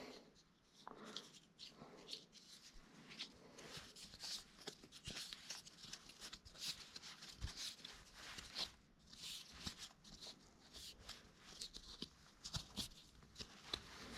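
Faint, irregular small clicks, taps and rustles of hands working the leaf blower's recoil starter rope and plastic parts.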